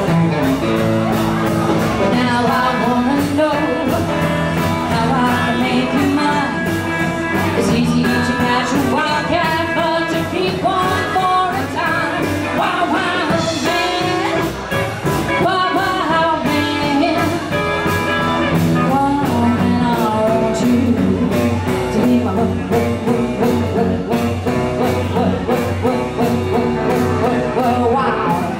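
Live rock and roll band playing a song: vocals over electric and acoustic guitars, upright double bass and drum kit, with a steady driving beat.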